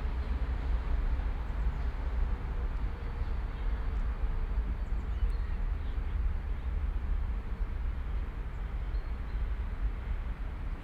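City park ambience: a steady low rumble of distant city traffic under an even background hiss, with a few faint high chirps.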